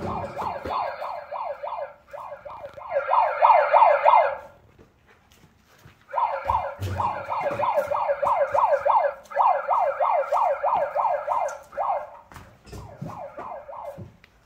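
Handheld megaphone's built-in siren sounding a fast, repeating rising yelp, about three sweeps a second. It breaks off twice, for a second or so about four seconds in and briefly near the end.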